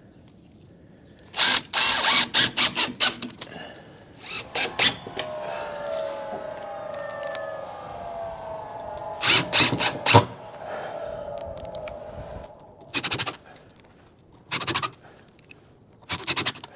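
Cordless drill/driver running screws through a window's nailing flange in short bursts, about six separate runs; the longest is near the start, and the last three are brief.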